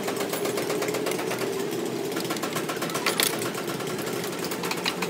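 A machine running steadily in the background with a fast, even pulsing, like an engine at idle. There is one brief sharp click about three seconds in.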